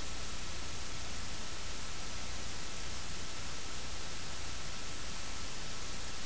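Steady static hiss of an empty stretch of recording, with a faint steady high tone and a low hum underneath.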